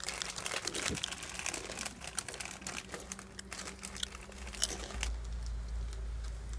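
Plastic snack packet crinkling and crackling as it is torn open and handled, in quick irregular crackles; near the end a low rumble takes over.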